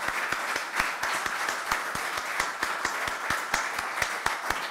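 Audience applause: many hands clapping steadily and densely.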